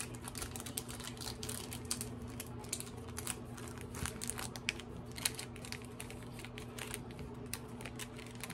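Clear plastic packaging bags being handled, giving irregular crinkles, clicks and taps, over a steady low hum.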